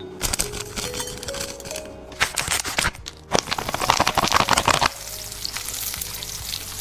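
Food sizzling and crackling in hot oil in a pan, loudest about halfway through, over soft background music.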